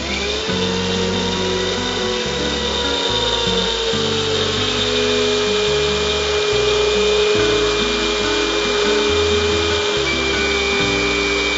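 Electric kitchen mixer grinder running, grinding coconut and cumin into a paste. A steady motor whine, dipping slightly in pitch a few seconds in, sits under rough grinding noise.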